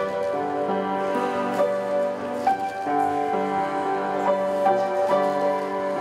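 Soft instrumental background music: held notes that change about every second, with a gentle, slow melody.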